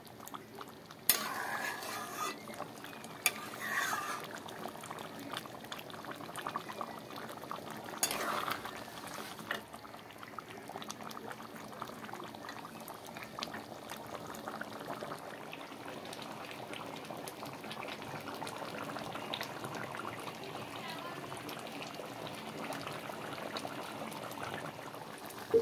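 Chicken and potato curry simmering and bubbling in a metal kadai as it is cooked down, with a metal spatula stirring and clinking against the pan, most sharply about a second, three seconds and eight seconds in.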